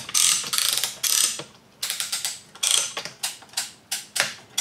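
Hand-operated ratchet strapping tensioner being pumped to tighten a strap around two pieces of wood, its pawl clicking against the ratchet wheel. It starts with a couple of long rattling strokes, then goes on as short separate clicks about three a second as the strap draws tight.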